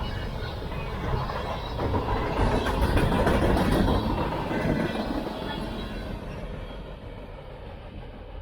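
Freight train rolling past on the rails, its wheel and car noise loudest about three seconds in and then fading as it moves away.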